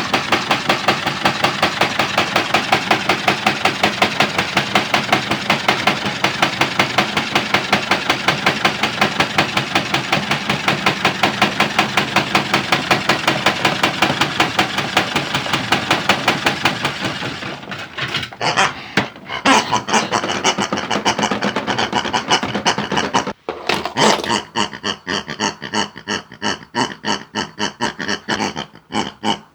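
Modified toy washing machine running with hard objects knocking in its drum: a fast, even knocking, several beats a second. After about seventeen seconds it turns uneven and stutters, then stops just before the end.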